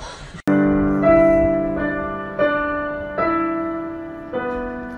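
Upright piano played slowly, starting suddenly about half a second in: a held low note with single notes struck over it about every second, six in all, each ringing and fading away.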